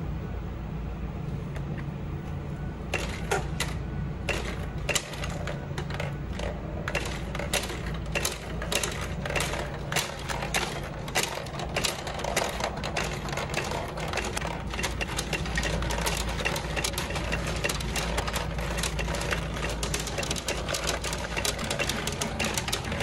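Pachinko machine being played: small steel balls clatter through the pins in a rapid, dense stream of clicks, starting about three seconds in, over a steady low hum.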